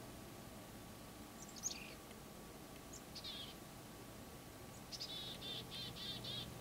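Small songbirds calling: a couple of short high chirps, then a quick run of about six repeated notes near the end.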